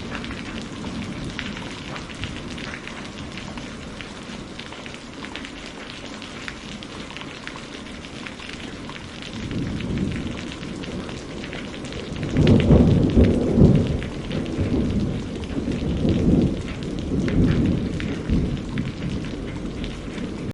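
Steady rain with rolling thunder. The thunder builds about ten seconds in, is loudest a little after twelve seconds, and keeps rumbling in further swells.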